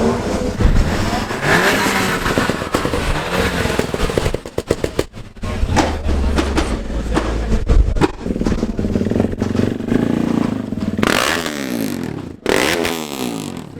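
Engines of modified cars revving up and down, with a run of sharp cracks from about four to eight seconds in, typical of exhaust bangs.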